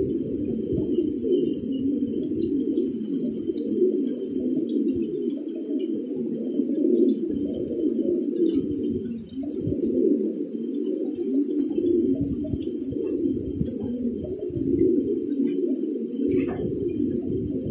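A flock of domestic pigeons cooing, many low coos overlapping without a break.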